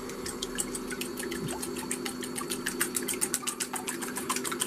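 Wire whisk beating eggs in a metal bowl: a fast, fairly even run of light metallic clicks that grows denser about halfway through. Under it, the steady hum of the Ikea TILLREDA induction cooktop running at high power.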